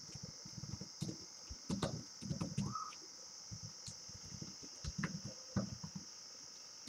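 Faint computer keyboard typing: irregular key clicks as a value is typed into the code, over a steady high hiss.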